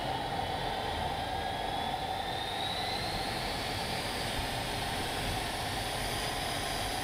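L-39 Albatros's Ivchenko AI-25TL turbofan running while the jet taxis, heard from the cockpit as a steady rushing hiss with a faint high whine that rises slightly in pitch partway through.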